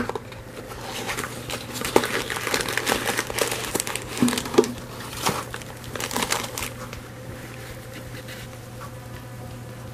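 Clear plastic bag of hamster bath powder being handled and pulled from its cardboard box, with irregular crinkling of the plastic. The crinkling is busiest through the first two-thirds and thins out near the end.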